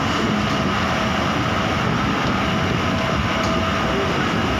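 Steady running noise of a moving passenger train, heard from inside a carriage at an open window.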